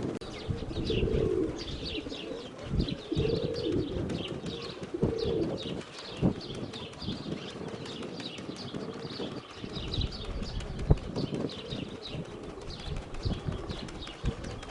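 Domestic pigeons cooing, three coos in the first six seconds, over a running chatter of small birds' high chirps. Irregular gusts and knocks rumble on the microphone.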